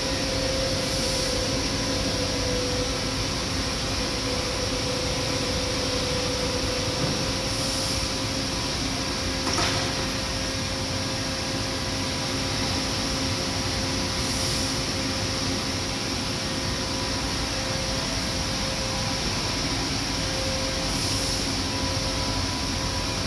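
Steady drone of running factory machinery: an even mechanical hum with a constant tone in it, and a single short click about ten seconds in.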